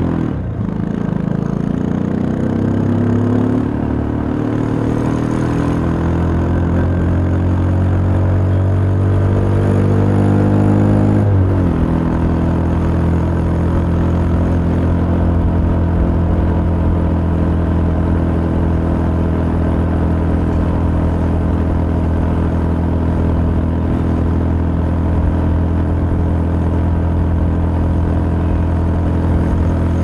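CrossFire Korak 125cc motorcycle's single-cylinder engine pulling under throttle: its pitch climbs slowly for about eleven seconds, drops sharply at an upshift, then holds steady at cruising speed.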